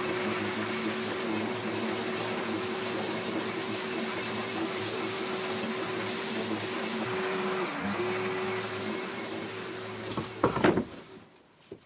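Electric random orbital sander running steadily on an end-grain birch plywood panel, a constant hum over a hiss. Its tone dips briefly about eight seconds in. It stops about ten and a half seconds in, followed by a few light knocks of boards being handled.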